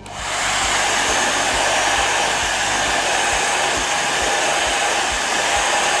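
Slopehill 1800 W ionic hair dryer, with an 18-blade fan on a permanent-magnet motor, switched on. It comes up to speed in a fraction of a second, then blows steadily as an even rush of air with a faint whine.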